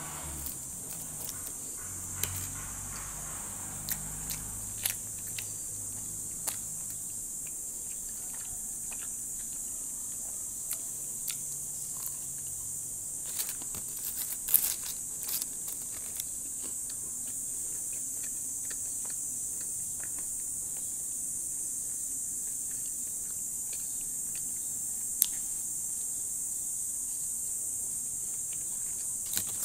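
Someone eating French fries: scattered small clicks and crackles of chewing and of fingers rustling the paper fries bag, over a steady high hiss.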